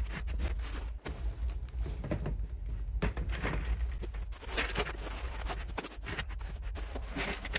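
Ceramic biological filter media pellets clattering and rattling in irregular bursts as they are poured from a plastic bag and pushed around by hand in canister filter trays, with the bag rustling, over a steady low hum.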